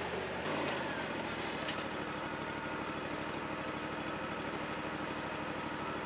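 Wood-Mizer LT40 band sawmill's engine running steadily with a fine, even pulse while the saw head travels back along the track between cuts.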